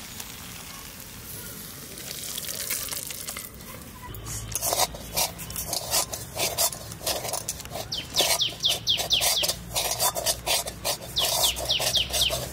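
A metal spatula scraping quickly and repeatedly against an aluminium kadai as the cooked cabbage ghonto is scraped out. It is faint at first, and the scraping starts about four seconds in, in quick runs of strokes with short squeaky edges.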